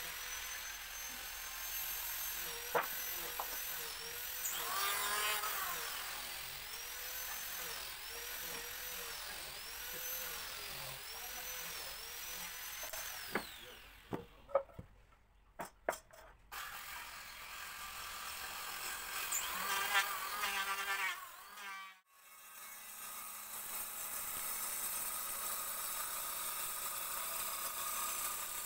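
Power woodworking machine running with its whine dipping and recovering over and over as it takes load, broken about halfway by a short lull with a few sharp knocks. Near the end a bench-mounted circular saw runs steadily.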